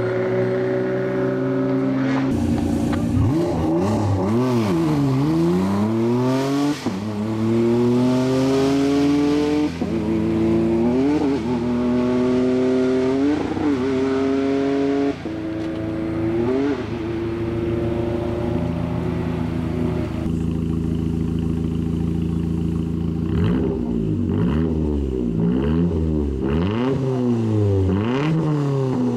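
Rally car engine revving hard throughout, its pitch climbing and dropping with throttle and gear changes. There are steady high-rev stretches and quick up-and-down swoops in between, with a cluster of rapid revs near the end.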